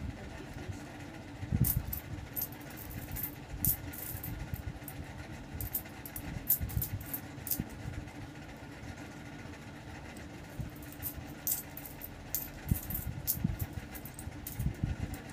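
Philippine peso coins clinking as they are slid and stacked by hand on a cloth-covered bed, counted out in groups of ten: short, irregular clinks, some in quick clusters, over a steady low hum.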